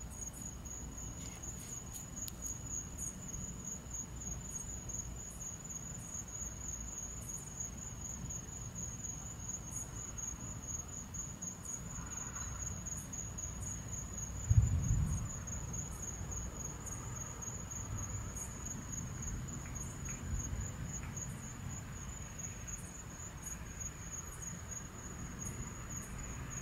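Night insects trilling on one steady high note, over a low rumbling background. About halfway through comes a short, low thump, the loudest sound.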